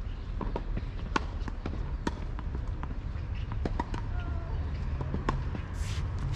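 Tennis rally on a hard court: a string of sharp, irregularly spaced knocks from rackets striking the ball and the ball bouncing, over a steady low rumble.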